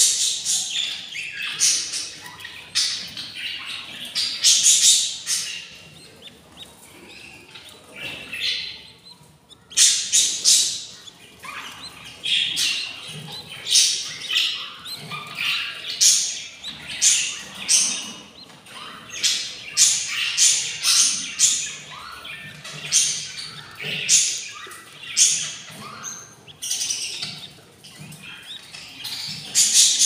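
Budgerigars chirping and squawking: short, harsh calls repeated about once a second, with a brief pause about eight seconds in.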